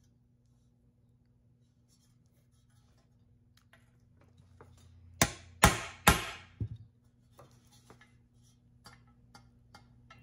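Small hammer tapping a hollow nut driver to drive a push-on spring clip onto a parking-light bezel: three sharp metal-on-metal strikes about half a second apart, then a lighter tap. Faint clicks of small metal parts being handled come before and after.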